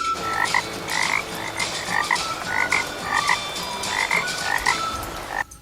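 Frog croaking, a short call about twice a second over a steady hiss, stopping abruptly near the end.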